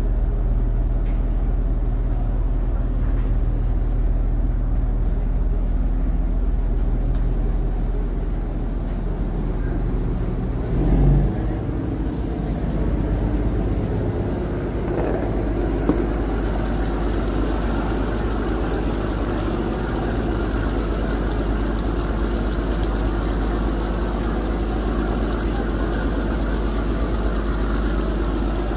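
A riverboat's engine running with a steady low drone. About eleven seconds in there is a brief louder rumble, and the engine's note shifts after it.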